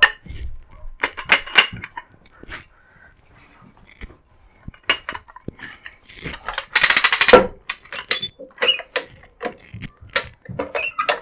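Hi-Lift jack clanking and clicking as it is set against the tire bead and its handle is worked, to push the bead off the rim. There are scattered metal clicks and knocks, and a quick run of rattling clicks about seven seconds in.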